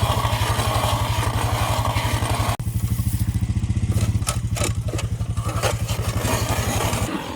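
Small gasoline engine running steadily at a fast, even firing rhythm, with a sudden break about two and a half seconds in and a run of clicks and rattles in the middle. The engine stops just before the end.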